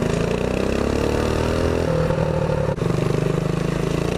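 Predator 212cc single-cylinder four-stroke engine on a mini bike running under throttle while riding. Its pitch climbs over the first two seconds, steps down, and cuts out for an instant about two-thirds through before pulling again, with wind and road noise underneath.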